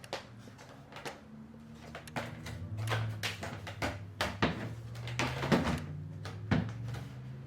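Plastic flap of a newly installed pet door being swung and clacking shut in its frame, about eight irregular knocks, over a steady low hum.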